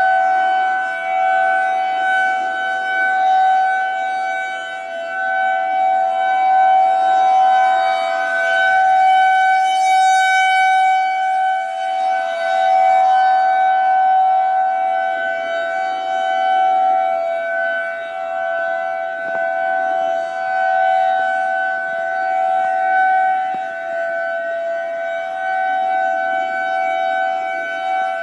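Federal Signal 2001-SRN rotating electromechanical outdoor warning siren sounding the steady Alert signal: a loud, unwavering tone with overtones that swells and fades slowly as the siren head turns.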